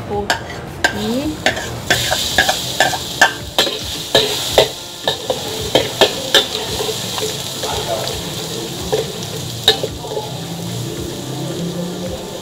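Food frying in hot oil in a wok with a steady sizzle, while a metal spatula stirs and clinks and scrapes against the pan in quick strokes, thickest in the first six seconds.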